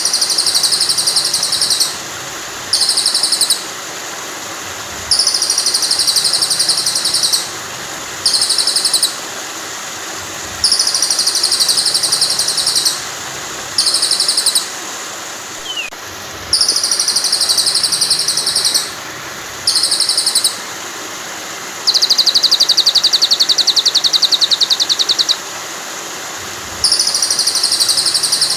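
Recorded songbird phrases played on a loop for training a white-rumped shama: a long chirping phrase and a short one alternate, repeating about every five and a half seconds. Beneath them runs a steady rush of flowing water. About two-thirds of the way in, a fast, even trill lasts about three seconds.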